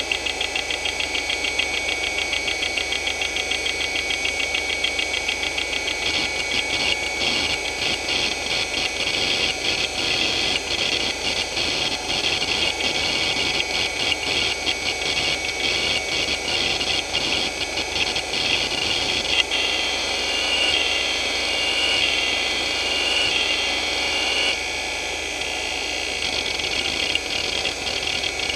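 Hitachi DK225A-14 2.5-inch hard drive seeking under a benchmark, its head actuator clicking over a steady high whine, in a drive the owner calls very unhealthy. The clicks come fast and even at first, then turn irregular; about twenty seconds in they give way to a warbling tone for a few seconds before the clicking returns.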